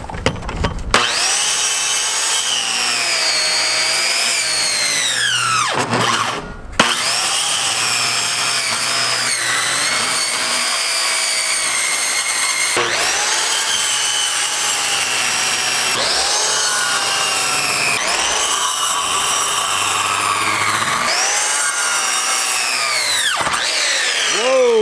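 Electric circular saw cutting through a boat's front deck, its motor whining in long runs that dip in pitch as the blade bites into the cut. The saw stops and spins back up several times and winds down near the end.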